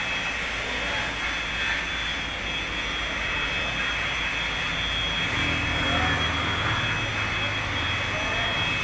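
Steady machinery noise with a constant high whine, joined about halfway through by a low, engine-like drone.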